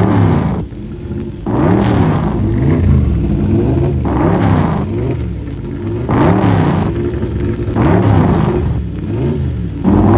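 Racing car engine revving up and dropping back about six times, roughly a second and a half apart, as it accelerates and lifts off in turn.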